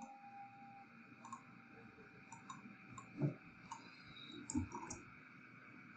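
Faint computer mouse clicks, several of them spaced irregularly, as files and dialog windows are clicked through on a desktop.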